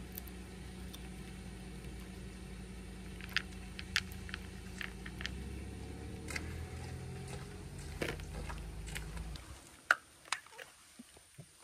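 A low, steady engine hum that cuts off suddenly about nine and a half seconds in, with scattered sharp ticks and taps throughout.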